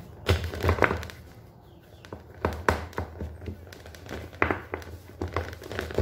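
Hands pressing and stretching soft bread dough out in an aluminium baking pan: irregular soft thumps and taps as the pan shifts and knocks on the counter, quieter for about a second near the start.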